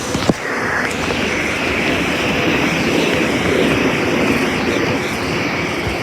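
A SEPTA Silverliner IV electric commuter train running close by, a steady rolling rumble with a higher whine over it. A single sharp knock comes just after the start, and the noise builds a little and then eases near the end.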